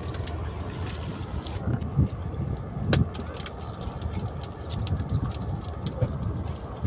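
Motorboat engine running steadily with a low hum, with a few sharp clicks, the loudest about three seconds in.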